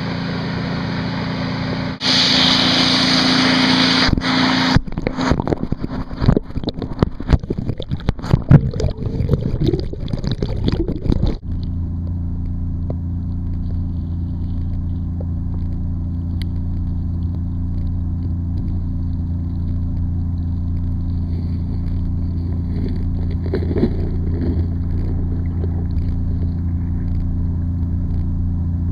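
Water sloshing and knocking against a Kodak PlaySport waterproof camera as it goes under: a loud hiss, then several seconds of irregular splashes and bumps. After about eleven seconds it settles into a steady, muffled low hum heard from underwater.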